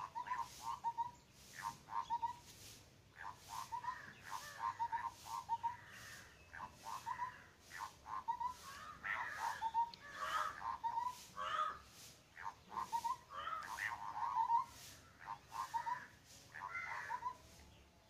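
Small flock of perched birds calling back and forth: runs of short, harsh notes repeated in quick succession, with bouts of several birds calling over each other.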